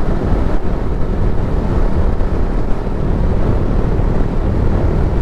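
Motorcycle ridden at speed: a steady rush of wind buffeting the microphone over the bike's running and road noise.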